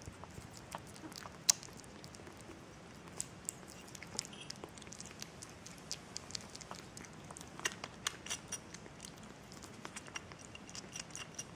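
Six-week-old kitten eating kitten kibble from a porcelain saucer: irregular small crunches and clicks, with one sharper click about one and a half seconds in and a quick run of them around eight seconds.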